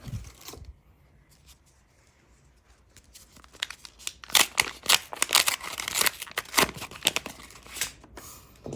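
A trading-card pack wrapper being torn open and crinkled: after a soft thump at the start and a quiet pause, a dense run of crackling tears and crinkles begins about three and a half seconds in and lasts some four seconds.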